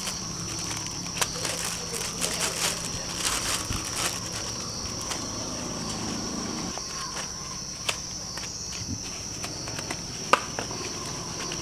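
A steady high-pitched chorus of farmed crickets (jangkrik) chirping, over the crinkling of a plastic bag and the knocking of cardboard egg trays being handled. One sharp click near the end.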